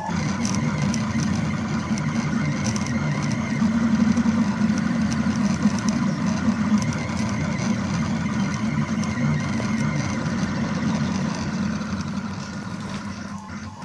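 Cherry Pi IIIS delta 3D printer's stepper motors whirring and buzzing in shifting low tones as the print head moves around a gear print. The sound gets a little quieter near the end.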